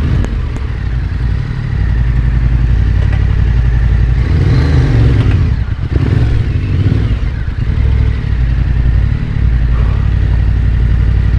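Yamaha Ténéré 700's parallel-twin engine running at low speed while the motorcycle climbs a steep, rocky trail, the revs rising and dropping a few times.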